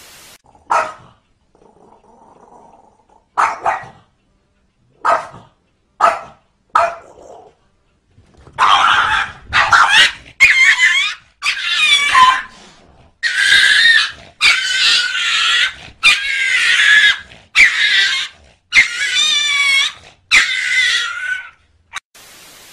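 A small dog barks sharply a few times, then lets out a long run of high, wavering yelps and squeals, about one a second, as if in distress during a fight.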